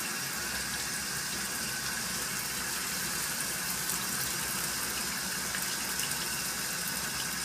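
Hot water running steadily from a tap or shower, an even, unbroken rush of flow.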